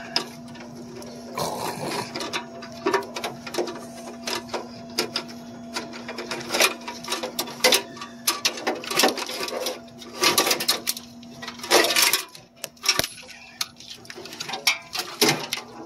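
Metal panels, parts and wiring of a drink vending machine being handled and pulled through, with irregular clicks, knocks and rattles over a steady low hum.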